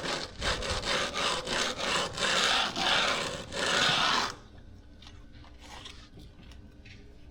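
Hand jointer (groover) scraped back and forth through fresh concrete to cut a control joint: quick rasping strokes, about three a second, giving way to three longer strokes that stop about four seconds in.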